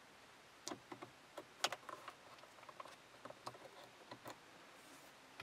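Faint, irregular clicks from the car's infotainment head unit as its buttons and rotary knob are pressed and turned, scattered over the first four seconds or so.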